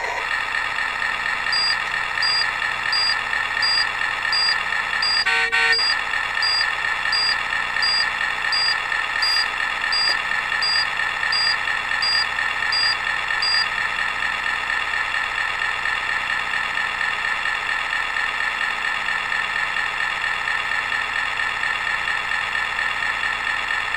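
Steady truck engine idle sound from the model MAN truck. From about a second and a half in to about thirteen seconds, a high electronic pip from the crossing's piezo buzzer repeats about three times every two seconds, the pedestrian-crossing signal while the green man is lit. There is one short knock about five seconds in.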